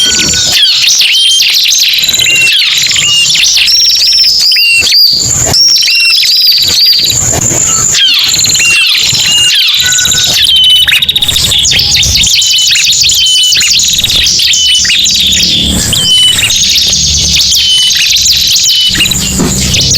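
Bird-lure recording mixing the calls of ciblek and prenjak, two small prinia-type songbirds: dense, rapid, high chirping with short repeated curved notes overlapping, loud and steady throughout.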